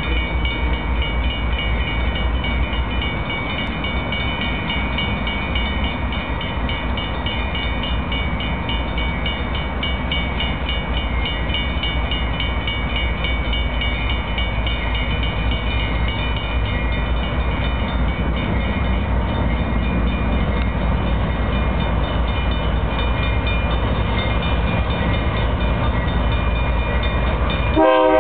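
BNSF GE Dash 9-44CW diesel locomotives running light and drawing closer, a steady low engine rumble with a continuous ringing of high tones above it. The locomotive horn sounds just at the end.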